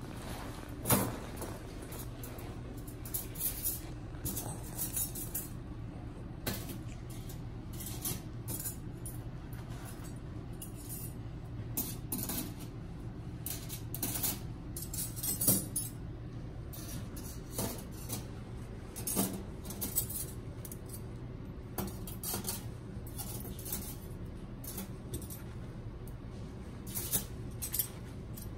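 Stainless-steel surgical instruments clinking and clattering now and then as they are handled, in short scattered knocks, the loudest about a second in and about halfway through. A steady low hum runs underneath.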